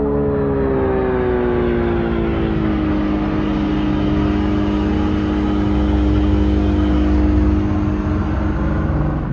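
Low, engine-like ambient drone: several steady tones glide down together about a second in, then hold over a low rumble, and cut off suddenly at the end.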